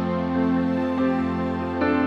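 Background music: a slow, soft instrumental track of held chords, changing chord near the end.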